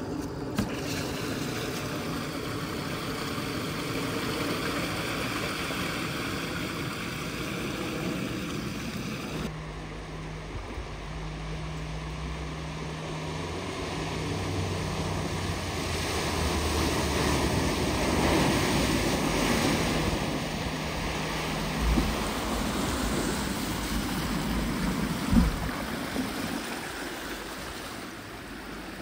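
Vehicles driving through floodwater: engine noise under a steady rush and wash of water. The sound changes abruptly about nine seconds in to a lower engine hum while the splashing swells and fades, with two sharp knocks near the end.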